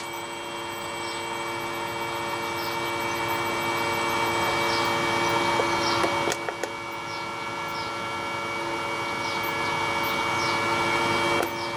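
Fan motor on a variable-frequency drive run at a very low output frequency: a steady electric hum and whine with several held tones over a soft rushing. A couple of light clicks about six seconds in.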